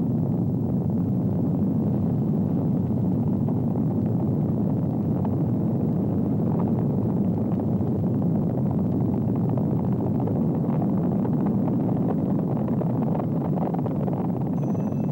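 Steady low rumble without breaks or distinct events.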